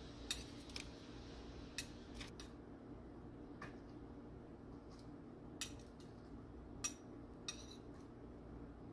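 Two metal spoons clinking and scraping against each other as ground beef is pushed off into tortilla chip scoops: scattered light clicks over a faint steady hum.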